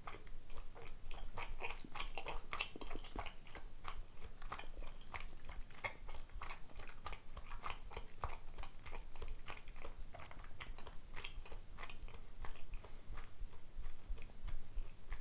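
Close-up chewing of mochi rice dumplings (dango): an irregular run of small mouth clicks and smacks.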